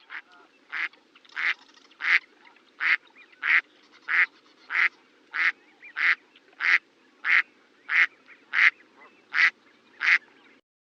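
Duck quacking in a steady, even run of about sixteen short quacks, roughly three every two seconds.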